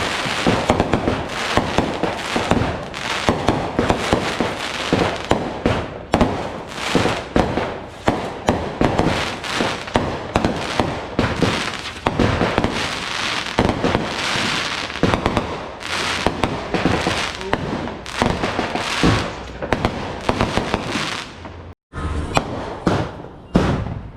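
Fireworks display: a dense, continuous barrage of aerial shells bursting, many sharp bangs overlapping in quick succession. Near the end the sound breaks off completely for an instant, then the bangs resume.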